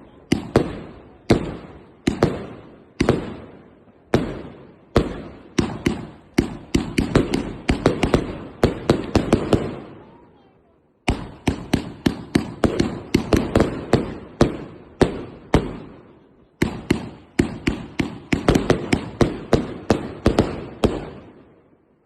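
PyroProdukt Optimum firework battery firing a long run of shots. The shots come at first about one every two-thirds of a second, then in quicker volleys with short breaks about ten and sixteen seconds in, and they stop shortly before the end.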